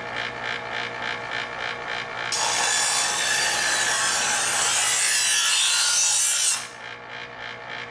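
A knife blade drawn through the second-stage slot of a Chef's Choice electric sharpener, the spinning abrasive discs grinding on the steel with a harsh, hissing scrape. It starts a couple of seconds in, lasts about four seconds, and cuts off abruptly. Background electronic music with a steady beat runs under it.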